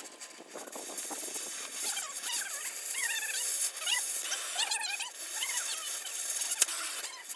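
Oxy-fuel cutting torch hissing as it cuts through a steel frame member. High, wavering squealing tones run over the hiss, and there is a sharp snap about six and a half seconds in.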